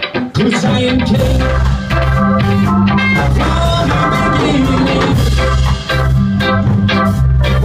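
Live ska band playing, with saxophone, electric guitar, bass and keyboard; the music drops briefly at the very start and the full band comes straight back in.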